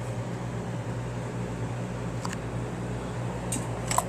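Steady low hum of room noise, with a few faint clicks near the end.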